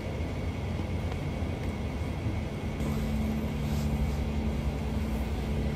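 Steady low rumble of strong wind on the microphone. About three seconds in, a steady low drone joins it.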